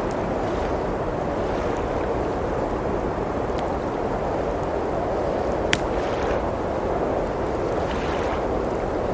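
Steady rushing of blizzard wind, with a wood fire crackling over it in scattered pops, one sharp pop a little past the middle.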